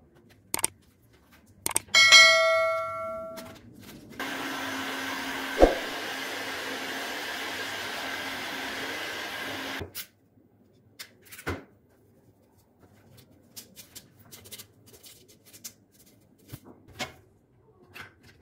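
A bright chime rings once and fades over about a second and a half. Then a handheld heat gun runs with a steady blowing whir and a low hum for about six seconds and cuts off suddenly, followed by scattered light taps and clicks.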